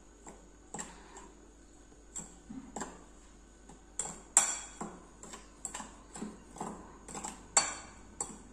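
Steel spoon stirring a dry wheat-flour mix in a bowl, clinking and scraping against the bowl in irregular taps, the loudest a little past four seconds in and again near seven and a half.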